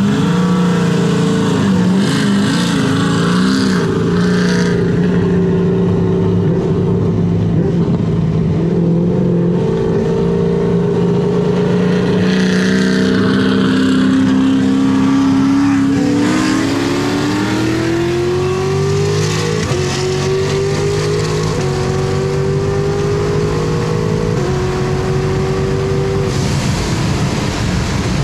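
Supercharged 6.2-litre V8 of a Camaro SS running loud through an AWE Touring cat-back exhaust under a hard pull. The engine note holds fairly steady for the first half, then climbs from a little past halfway in a glide and a few stepwise changes in pitch.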